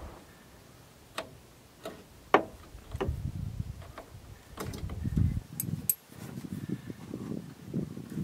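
Metal hand tools clicking and clinking on the battery fittings as a wrench loosens them to get the battery out of a buggy, with a handful of separate sharp clicks, the loudest about two seconds in, amid low rustling of hands and parts.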